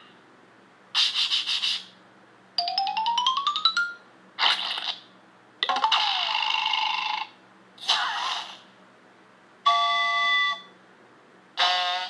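A string of added cartoon sound effects with short gaps between them: stuttering bursts, a rising glide made of quick clicks, a bell-like ding about ten seconds in, and a whistle that swoops up and then down near the end.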